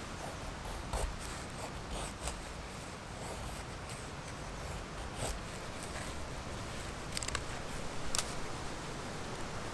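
Knife blade shaving thin curls off a dry wooden stick, carving a feather stick: several short scraping strokes at irregular intervals.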